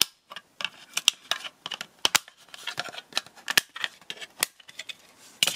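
Plastic case of an IKEA Stenkol battery charger being pried apart with a flat-blade screwdriver: a run of irregular sharp clicks as its snap-fit clips give way.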